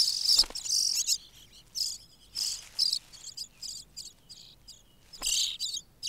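Pied flycatcher nestlings begging: short bursts of high, rapid chirping, coming several times with pauses between.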